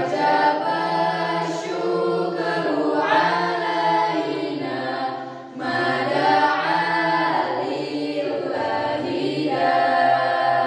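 A group of girls and boys singing an Islamic nasheed together a cappella, in sustained, melodic phrases. There is a brief dip between phrases a little over five seconds in.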